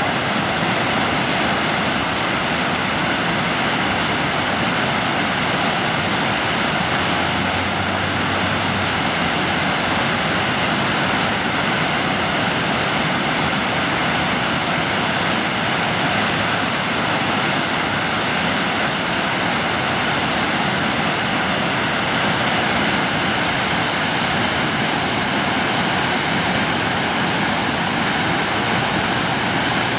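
Whitewater of a standing river wave rushing steadily, close to the microphone at water level.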